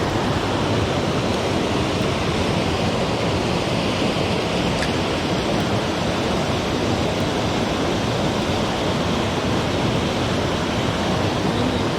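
Mountain stream water rushing steadily, a continuous even roar.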